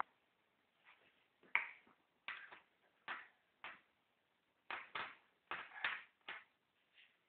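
Handling noise on a wooden desk: about a dozen short taps and rubs at irregular intervals as a pen and other small objects are moved around, the sharpest about a second and a half in.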